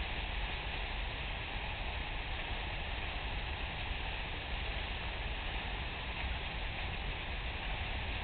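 Empty freight wagons rolling past on the track, a steady low rumble with hiss and no distinct wheel clicks.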